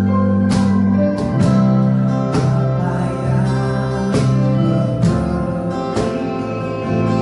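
Church worship band music: held chords over a sustained bass with guitar, and sharp beats about once a second.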